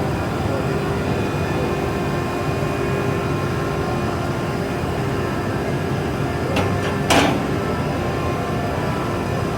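A 500 W fiber laser cutting machine running with a steady mechanical hum and a faint held tone. Two short sharp sounds come about six and a half and seven seconds in, the second louder.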